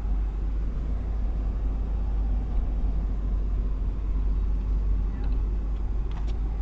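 Steady low rumble of a pickup truck driving slowly, heard from inside the cab.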